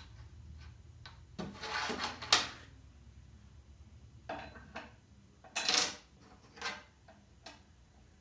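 Slide locks and a drop-in drawer tray being handled and fitted: a string of irregular knocks, clicks and short scrapes, the loudest knock about two seconds in.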